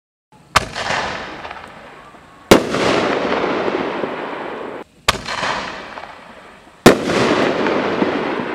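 60 g artillery shells from a Pro Ox 24-shot kit firing and bursting in the air: four sharp bangs about two seconds apart, each followed by a long crackling hiss that fades away.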